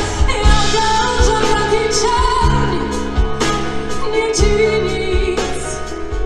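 Live pop-ballad band of drum kit, bass guitar, electric guitar and keyboards playing between sung lines, with a steady drum beat about once a second and a female voice singing over it.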